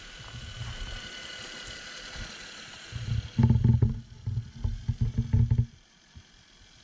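Electric motor and geartrain whine of a Traxxas TRX-4 Sport RC crawler driving, fading about three seconds in as the truck pulls away. Then a couple of seconds of loud low rumbling with knocks, which is the loudest sound here.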